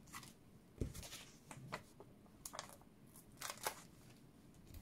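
Cardstock pieces handled by hand on a craft mat while a label is stuck on with foam adhesive dots: a few faint, scattered taps and paper rustles, with a soft thump a little under a second in.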